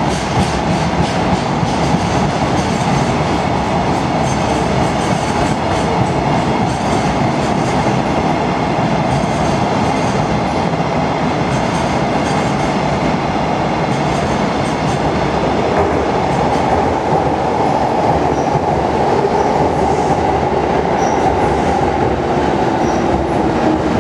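Freight train of container flat wagons rolling past close by, a loud steady rumble with the wheels clattering rapidly over rail joints, the clatter thinning out as the last wagons go by.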